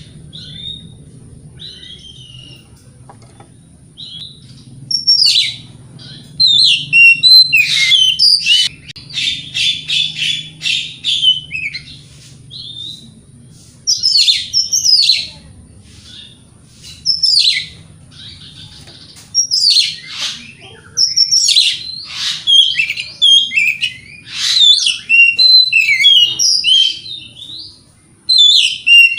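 Oriental magpie-robin (kacer) singing a loud, fast, varied song of whistles, chirps and trills in bursts separated by short pauses. The first few seconds are quieter, with only scattered short notes.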